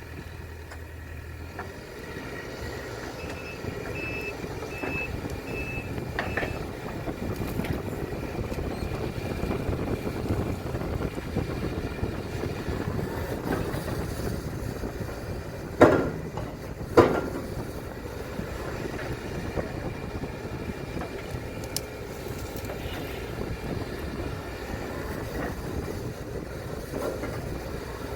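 Case CX210D excavator's diesel engine running steadily while digging, with a short run of high beeps a few seconds in and two sharp clanks about halfway through.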